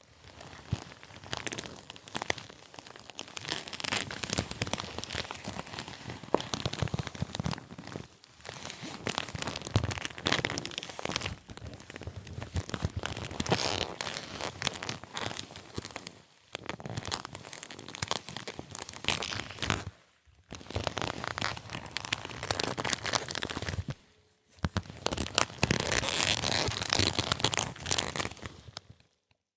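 Leather creaking and crackling in long, dense runs broken by a few brief pauses.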